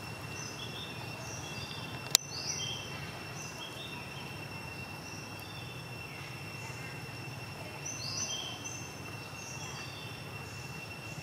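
Forest ambience: a steady high-pitched whine with short high chirps coming and going, and one sharp click about two seconds in.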